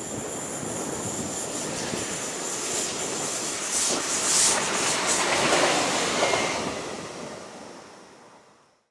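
Mermec TIPO4 diesel-electric track-measuring vehicle passing on a curve: rumble of wheels on rail growing as it approaches, loudest about four to six seconds in, then fading away and cutting off just before the end.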